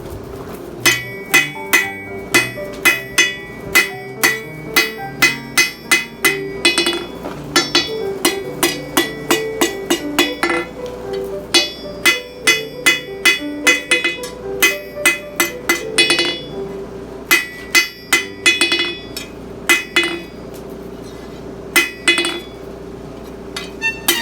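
Hand hammer blows ringing on an anvil while forging steel: runs of sharp strikes about two a second, broken by short pauses. Background music plays underneath.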